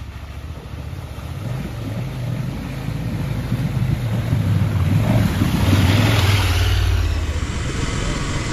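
Dual-sport motorcycle engine pulling as the bike gathers speed, getting louder over several seconds along with a rushing noise, then easing off about seven seconds in.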